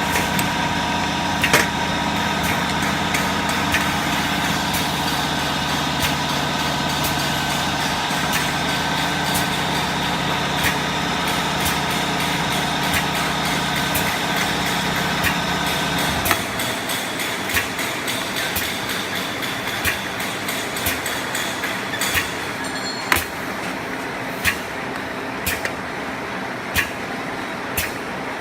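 Automatic perfume bottle filling and crimping machine running: a steady motor hum with a faint whine, over repeated sharp clicks and clacks of the mechanism. About sixteen seconds in the low hum cuts off suddenly, leaving lighter machine noise and clicking.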